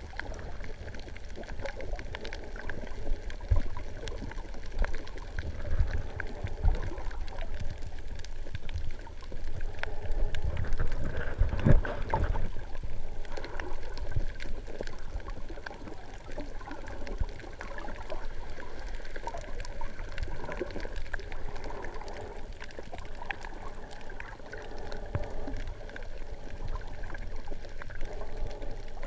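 Muffled underwater water movement, an irregular low rumble and sloshing as heard from inside a GoPro's waterproof housing while snorkelling, with one louder surge near the middle.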